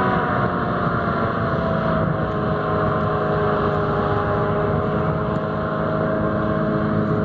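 Hurricane utility cargo hovercraft, driven by a Steyr diesel engine with a hydraulically driven lift fan, running steadily past with a droning hum whose tone falls slowly.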